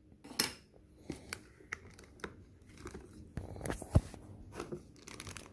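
Cardboard box and packing materials being handled and pulled apart: scraping and rustling with scattered sharp clicks, and one louder knock about four seconds in.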